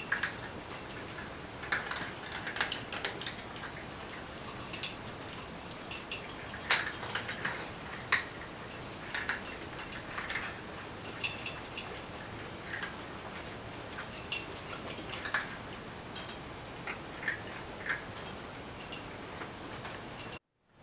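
Several cats eating dry kibble from bowls: irregular sharp crunches and clinks of food and bowls, with one louder clack about seven seconds in.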